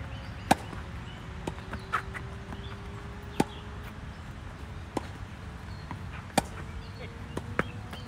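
Tennis ball struck by racket strings during a doubles rally: three sharp strikes about three seconds apart, the loudest about two-thirds of the way through, with softer pops of the ball bouncing on the hard court between them.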